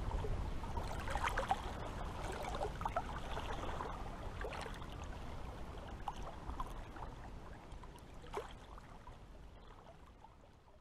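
Water lapping and gurgling: small splashes over a steady wash, fading out toward the end.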